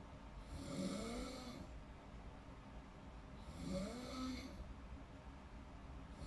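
A person snoring in deep sleep: two snores about three seconds apart, each about a second long with a buzzing tone that rises and falls, and a third starting right at the end.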